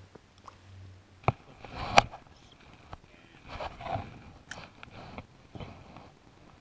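Rustling and scuffing of handling noise, with two sharp knocks about a second and a quarter in and at two seconds; the second knock is the loudest.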